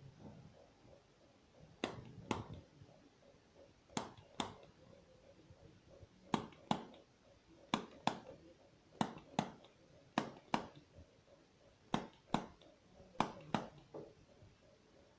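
Chiropractic activator adjusting instrument firing against the neck: sharp spring-loaded clicks in pairs about half a second apart, eight pairs in all, one pair every second or two.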